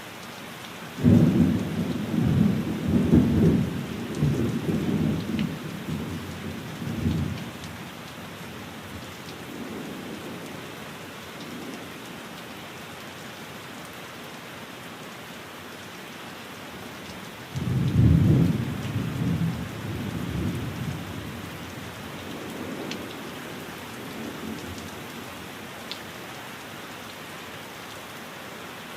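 Steady rain with two peals of thunder: one breaks about a second in and rumbles on in waves for about six seconds, a second breaks a little past halfway and rolls away with a fainter echo a few seconds later.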